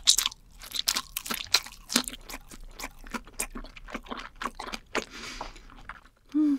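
A woman chewing grilled eel, with a rapid, irregular run of crisp crunches.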